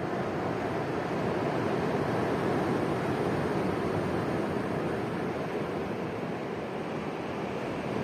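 Surf breaking and washing over a rocky, pebbly shore: a steady rush of waves that swells slightly and eases again.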